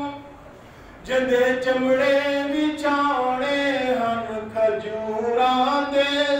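A man reciting a naat (a devotional poem in praise of the Prophet) unaccompanied, in long held notes that slide up and down. He pauses for about a second at the start, then goes on.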